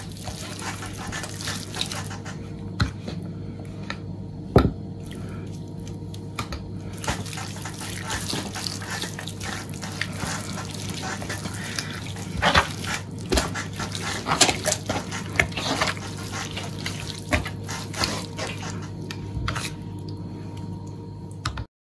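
Hands rubbing and kneading marinade into a raw pork belly: wet squelching and smacking of palms on the oily meat, over a steady hum. The sound cuts off suddenly near the end.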